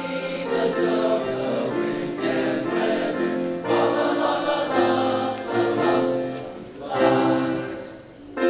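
Boys' choir singing in parts with piano accompaniment, the sound fading away near the end.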